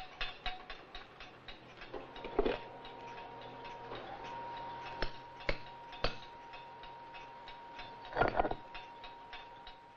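Rapid, irregular ticking and tapping, with a steady thin high whine underneath from about two seconds in and a few louder knocks near the middle.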